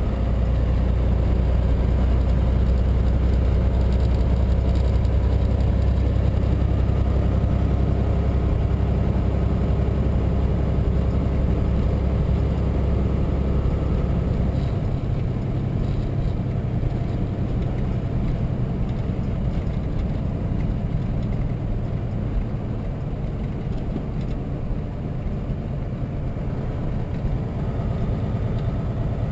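Semi truck's diesel engine and road noise heard from inside the cab while driving on the highway. The deep low drone drops off sharply about halfway through, and a lighter steady rumble carries on.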